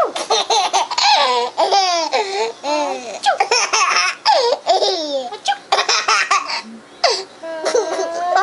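A baby boy laughing in repeated bursts, set off by fake sneezes.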